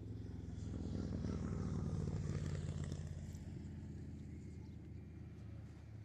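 A motor vehicle's engine running steadily with a low hum, growing louder for a couple of seconds about a second in, then easing off again.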